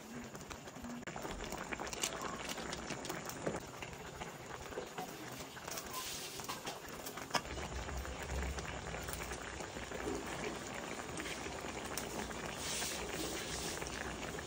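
Coconut milk broth with shrimp and vegetables simmering in a wok, bubbling and popping steadily, with a spatula stirring through the greens at first.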